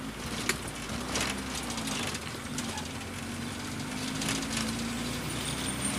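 Engine and road noise inside the cabin of a square-bodied VW Voyage being driven. The engine note rises slightly about a second in and then holds steady, with a few faint clicks over it.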